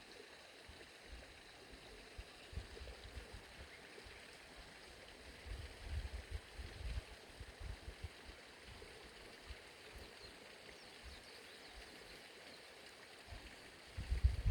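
Faint waterside ambience: a steady soft hiss with irregular low rumbling gusts of wind on the microphone, strongest about six seconds in.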